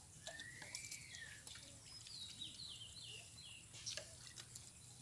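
Birds calling: one rising-then-falling call near the start, then a run of five short falling chirps. A few faint sharp clicks sound in between.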